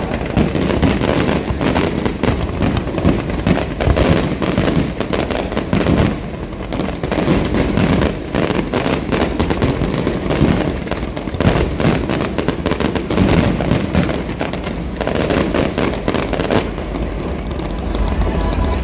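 Fireworks display: a dense, continuous run of overlapping bangs and crackles, its sharp crackle dying away in the last couple of seconds.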